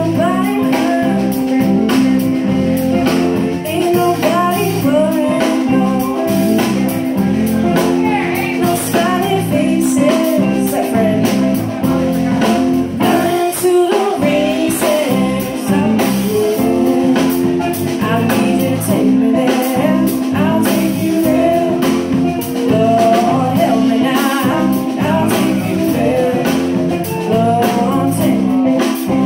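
A live band playing a song on electric bass guitar, acoustic guitar and drum kit, with a lead singer's voice over the top.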